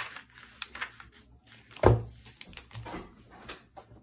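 Paper pages of a notebook journal being riffled and turned by hand: a string of rustles and light taps, with one louder thump about two seconds in.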